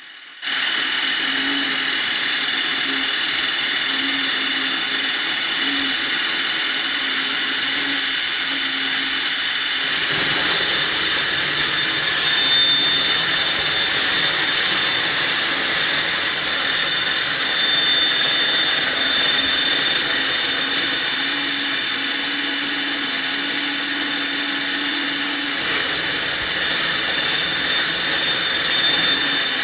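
BF20 CNC milling machine running steadily with a high whine, on its original spindle bearings before a bearing upgrade. The machine starts about half a second in, and about ten seconds in a lower rumble joins and stays.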